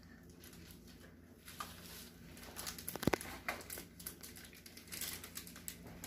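Key lime Kit Kat wrapper crinkling and tearing as a piece is unwrapped by hand, in scattered crackles, with one sharp tap about three seconds in.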